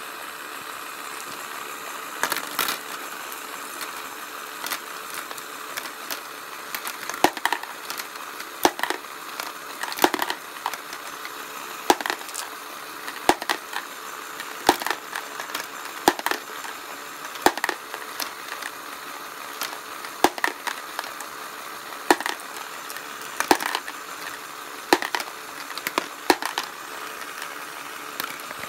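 Lego conveyor belt running with a steady motor whir, while the marbles it carries up drop off the top one at a time into a clear plastic tray, clicking against the plastic and the other marbles about every second and a half.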